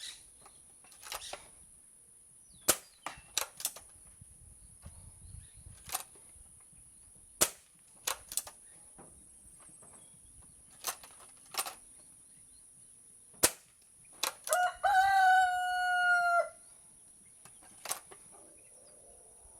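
Crosman Nitro Piston .22 break-barrel air rifle being fired in quick succession, a sharp crack every few seconds with lighter clicks in between as the barrel is broken, loaded and closed. A rooster crows once about 15 seconds in, a single two-second call.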